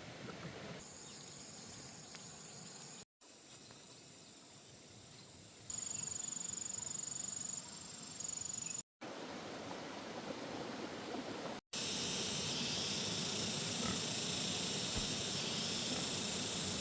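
Outdoor ambience with a steady hiss and a thin high insect drone, cut off abruptly three times where short clips are joined; from about twelve seconds in the hiss is louder and brighter.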